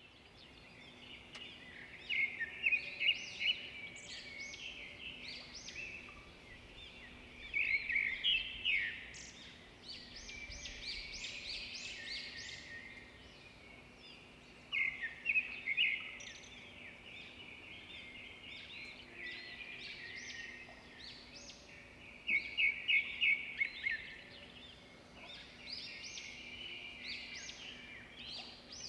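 Birds singing in repeated bursts of rapid, high chirping notes every few seconds, over a faint steady low hum.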